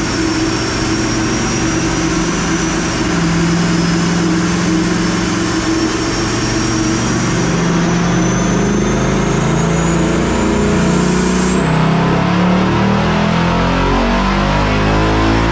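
Supercharged Ford Coyote 5.0 V8 in a 2022 Mustang GT running on a chassis dyno through the stock exhaust. Over it is a thin, high supercharger whine that climbs steadily in pitch through the second half as the engine revs rise.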